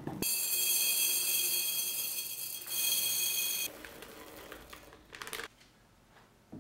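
Fine salt pouring into a glass jar: a steady hiss with a ringing tone from the glass, which starts suddenly and stops about three and a half seconds in. Quieter clinks and rustles of the jar being handled follow.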